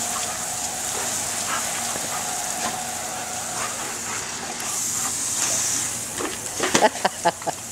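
Garden-hose ground sprinkler spraying water in a steady hiss, which grows louder about halfway through as its water is turned up. Near the end, a quick run of short, sharp yips from the German Shepherds playing in the spray.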